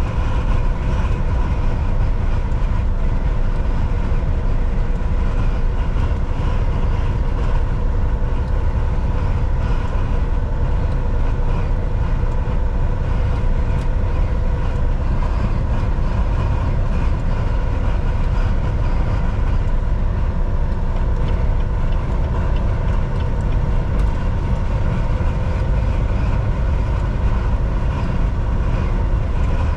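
Volvo VNL 760 semi truck cruising at highway speed: a steady, unbroken rumble of engine and tyres on the road, with a faint constant whine over it.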